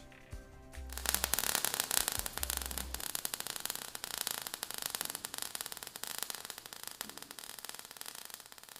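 Dense crackling hiss, like static, starting about a second in and slowly fading away, with a low hum under it during the first few seconds.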